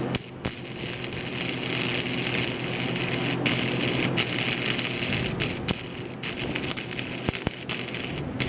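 Arc welding: a steady crackling sizzle from the welding arc, broken by brief pauses several times where the arc stops and restarts.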